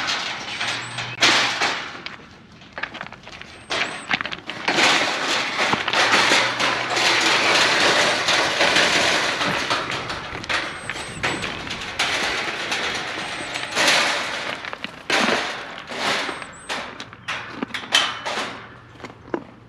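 Farm animals jostling and eating at carrot feeding time: a jumble of scuffling, rustling and sharp knocks and thumps.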